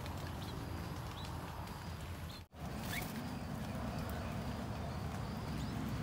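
Steady low background rumble with a few faint, short high bird chirps now and then. The sound cuts out completely for a moment about two and a half seconds in.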